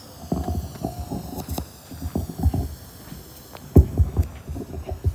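Irregular low thumps and rumbles, with a few sharp clicks, from a phone being handled and moved while it records. The loudest thumps come a little under four seconds in.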